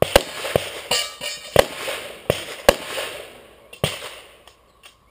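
Pistol fired in a rapid string of about six or seven sharp shots over roughly four seconds, each with a short echo.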